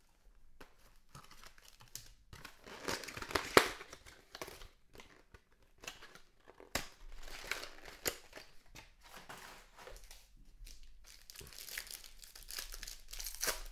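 Trading card packaging being crinkled and torn open by hand, with irregular rustling and a few sharp clicks and snaps, the loudest about three and a half seconds in.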